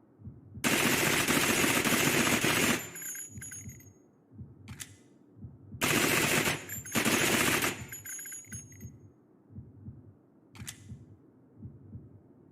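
Hybrid Uzi submachine gun sound effect: two sustained full-auto bursts of about two seconds each, the second with a brief break in the middle, each trailing off with high metallic ringing. A single sharp shot follows about a second after each burst. Low, heartbeat-like thumping pulses run underneath.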